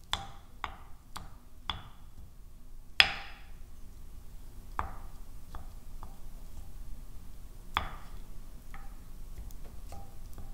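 About a dozen sharp, unevenly spaced knocks of a kitchen utensil striking a hard surface, each with a brief ring. The loudest comes about three seconds in.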